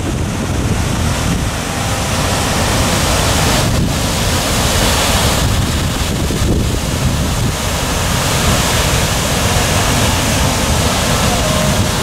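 Steady rushing roar of the Düden waterfall pouring off a cliff into the sea, with wind buffeting the microphone. The hiss grows brighter about four seconds in.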